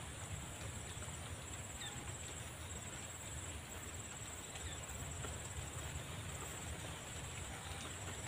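Quiet waterside ambience: a steady high-pitched insect drone over a low rumble, with a few faint short chirps.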